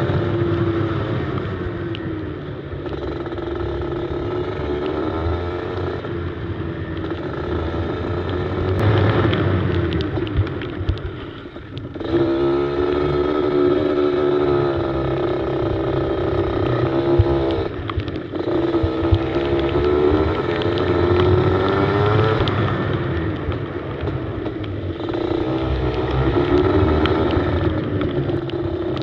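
Kart engine heard onboard, its note rising and falling as the throttle opens and closes through corners, dropping away about eleven seconds in and then climbing again.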